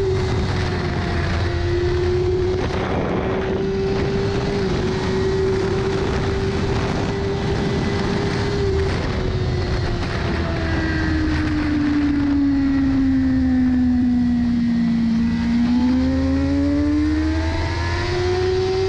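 Sport motorcycle engine running hard at high revs at around 240 km/h, heavily mixed with wind rush. The engine note holds steady, falls over several seconds as the bike slows, then climbs again near the end.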